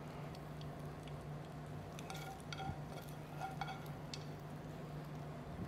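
Metal spoon scraping and clinking lightly against a stainless sauté pan as cooked bacon is scooped out, a scattering of small ringing clinks. A steady low hum runs underneath.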